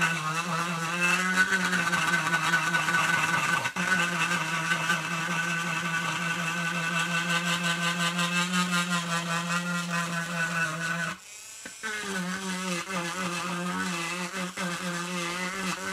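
Dremel Stylo Plus rotary engraving pen running with a steady high whine while its bit cuts lines into a wooden board. The tone wavers as the bit bites into the wood. The tool stops for under a second about eleven seconds in, then starts again.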